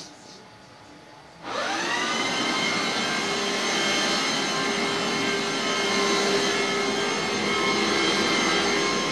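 Steam cleaner switched on about a second and a half in: its motor spins up with a rising whine, then runs steadily.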